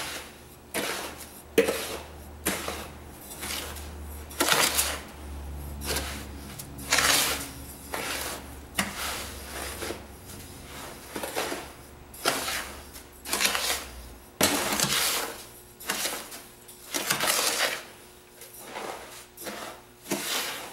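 A long metal spoon scraping and stirring through a tub of dry Epsom salt, sea salt and baking soda, mixing in ground turmeric. It makes a run of uneven gritty scraping strokes, about one a second.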